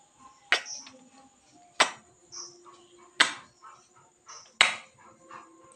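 Lips smacking in loud kisses against a mirror's glass, four sharp smacks roughly every second and a half.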